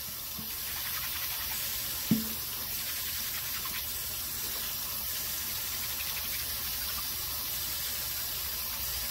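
Kitchen faucet running in a steady stream into a stainless steel sink, splashing over a soapy tie being scrubbed by hand in the flow. A single short knock about two seconds in.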